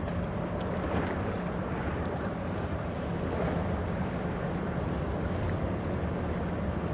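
Steady low drone of a small general cargo ship's diesel engine as it passes, under an even hiss of wind and sea.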